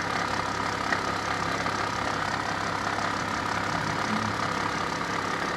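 Engine of a 2014 Jeep Wrangler JK, a 3.6 L V6, running steadily with a constant whine over the engine hum. This is the new noise the owner can't place; he thinks it may be the drive belt.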